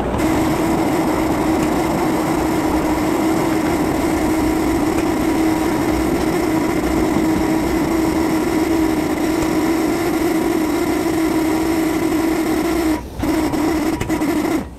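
Steam released from live-steam 2-6-0 locomotive No. 573: a loud, steady hissing tone that starts suddenly, breaks off briefly about a second before the end, sounds again, then cuts off.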